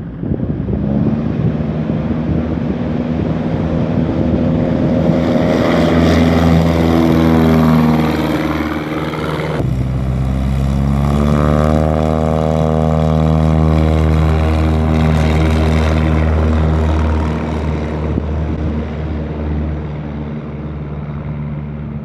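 Super Cub-type STOL bush plane's piston engine and propeller at takeoff power, a loud drone whose pitch falls as it passes close by. After a sudden cut a second takeoff follows: the engine note rises, holds steady, then fades as the plane climbs away.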